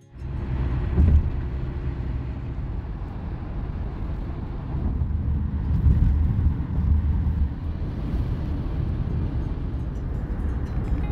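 Steady road and tyre noise with a low rumble, heard inside the cabin of a Hyundai Santa Fe driving at highway speed.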